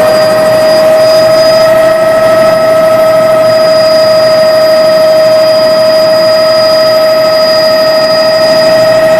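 Helicopter in flight: steady, loud engine and rotor noise with a constant high whine.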